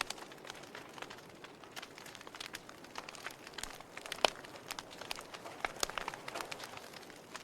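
Wood fire crackling: irregular sharp pops and snaps over a steady low hiss, with one louder pop about four seconds in.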